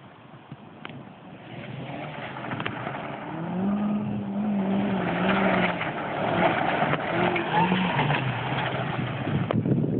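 Kia Rio driven hard on loose gravel, its engine revving up and down as it comes toward the listener with a rushing crunch of tyres on gravel. It grows steadily louder and passes close near the end.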